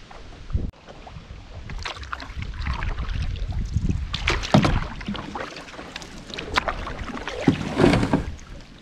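Canoe paddle strokes dipping and splashing in the water beside a plastic canoe hull, with short knocks and splashes, the busiest near the end.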